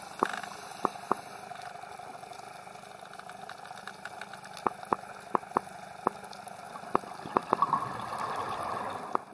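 Underwater reef ambience heard through a submerged camera: a steady watery hiss broken by sharp, isolated clicks at irregular intervals, with a swell of watery noise about eight seconds in.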